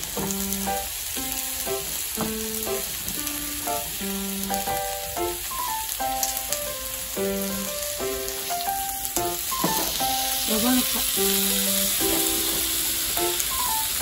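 Meat sizzling steadily on a yakiniku grill plate over a tabletop gas stove, under a light background melody of short, stepping notes.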